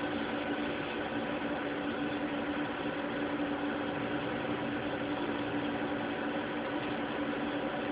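Steady mechanical hum with a constant tone and even hiss, unchanging throughout.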